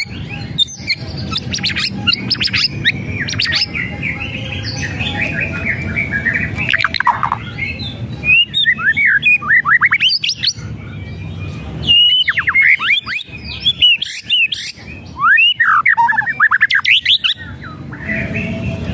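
White-rumped shama singing in an agitated run of whistles and rattling chatter (kretekan). It gives quick clusters of notes that slide down in pitch, broken by short pauses, and the loudest flurries come in the second half.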